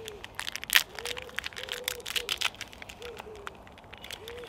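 A pigeon cooing in the trees, a run of short, soft, repeated notes, over scattered clicks and rustles with one sharper click about a second in.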